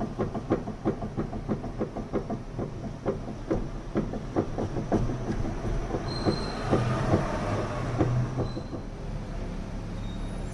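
Volkswagen Gol's suspension knocking: a rapid run of clunks, about three a second, for roughly the first six seconds, then fewer knocks over a steadier rumble. It is the suspension noise the car is being checked for.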